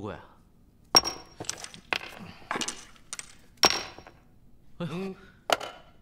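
Coins clinking down one after another, about seven sharp clinks spread unevenly, two of them ringing briefly: incense money being counted out or paid.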